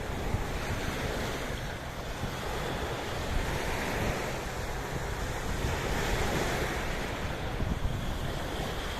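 Sea waves washing in steadily, with wind rumbling on the microphone.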